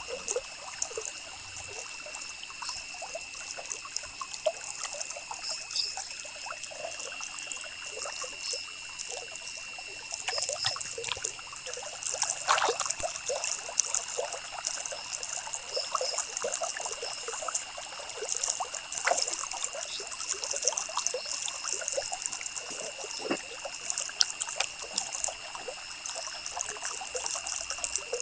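Ballpoint pen scratching across paper in quick repeated strokes, an irregular scratchy rustle, with a steady high whine underneath.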